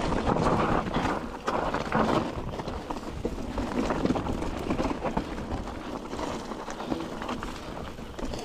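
Wind buffeting the microphone in a steady low rumble, with scattered footsteps on the trail.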